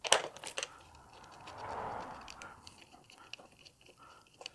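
Small plastic parts handled and fitted together by hand: a few light clicks at the start, a soft scraping rustle between one and two and a half seconds in, then faint scattered ticks and one more click near the end.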